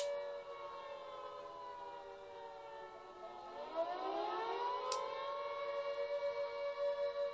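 A siren wailing in the background: a steady multi-toned note that drops in pitch about three seconds in and rises back over the next second or two. A sharp click right at the start and a fainter one about five seconds in.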